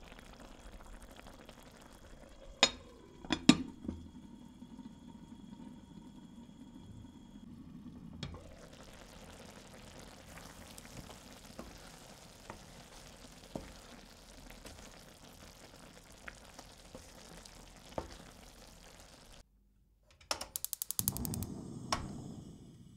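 Kitchen work at the stove: two sharp clinks of a utensil against cookware, leaving a brief ringing tone, then a steady faint hiss with a few light ticks. Near the end, after a brief break, comes a quick run of rapid ratcheting clicks.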